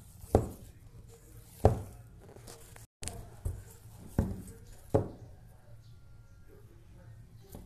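Momo dough being kneaded by hand in a steel bowl: about five irregular dull thumps as the hand presses and pushes the dough against the bowl.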